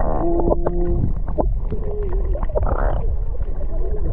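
Muffled sea water heard through a camera held below the surface: a steady low rumble with scattered clicks and knocks. A short held tone sounds early on, and faint wavering tones come around the middle.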